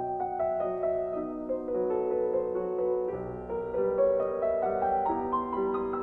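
Background instrumental music: a slow, gentle melody of held, overlapping notes.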